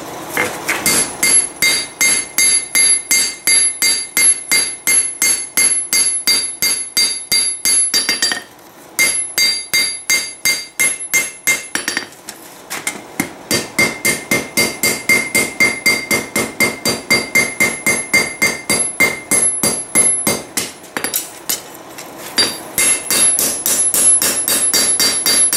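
Hand hammer striking a red-hot blade, forged from a Heller farrier rasp, on an anvil in a fast steady rhythm of about three to four blows a second, each blow ringing, as the blade is hammered to shape. The hammering stops briefly about 9, 12 and 21 seconds in.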